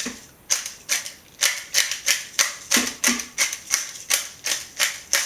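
Pepper mill being twisted to grind peppercorns: a steady run of crisp clicks, about three a second.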